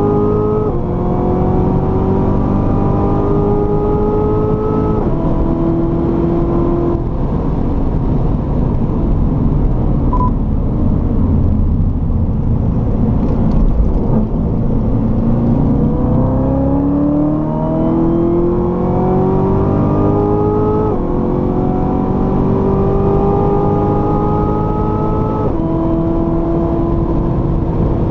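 Chevrolet Corvette C7 Z06's supercharged 6.2-litre V8 under hard acceleration, its pitch climbing and then dropping back at each upshift of the automatic gearbox, three times in the first seven seconds. Through the middle the engine tone gives way to a rushing noise, then it pulls up through the gears again with two more upshifts in the last third.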